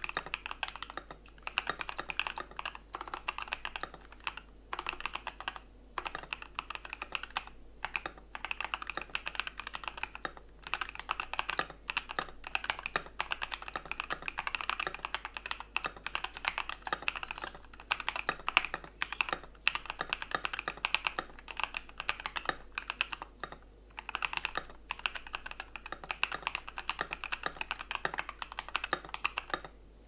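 Typing on an Ikki68 Aurora R2 65% mechanical keyboard with stock Alpaca linear switches, aluminium plate, Poron dampener kit, brass bottom weight and lubed, Holee-modded stabilizers. A fast run of keystrokes is broken now and then by short pauses.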